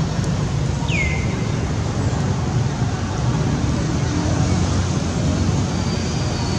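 Steady low rumble of outdoor background noise, like distant road traffic, with a short high chirp falling in pitch about a second in.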